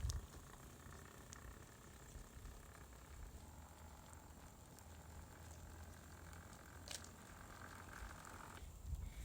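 Near silence: faint background hum with a light click about seven seconds in; the engine is not running.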